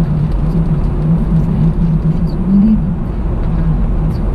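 Car driving at motorway speed, heard from inside the cabin: a steady low rumble of engine and tyre noise with a wavering hum under it.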